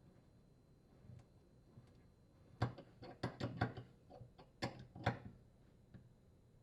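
A quick, uneven string of about a dozen sharp clicks and taps over two and a half seconds, starting near the middle, from reconnecting the dishwasher's water supply line to its supply valve.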